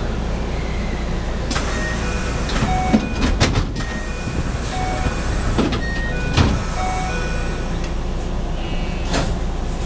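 JR West electric commuter train running at a station: a steady low rumble with irregular clicks and knocks, and several brief high squeals.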